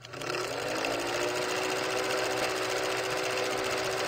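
Old film projector running, a steady rapid clatter with a hum that rises slightly in pitch as it comes up to speed at the start.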